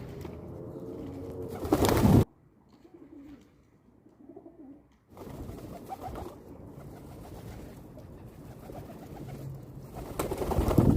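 Pigeons cooing, low and wavering. Two louder noisy bursts are heard, one about two seconds in that stops abruptly and one near the end.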